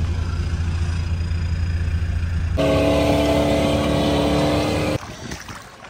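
Off-road vehicle engines in two cut-together clips: a low, steady engine rumble for the first couple of seconds, then abruptly a steady, higher-pitched engine tone held for about two and a half seconds, which cuts off about five seconds in.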